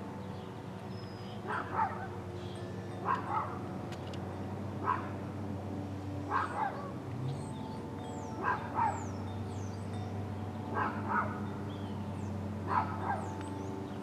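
A dog barking repeatedly, mostly in quick pairs about every second and a half, over a steady low hum.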